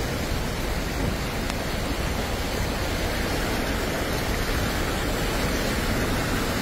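Steady rushing water noise of rain and floodwater as cars drive slowly through a flooded street, pushing wakes.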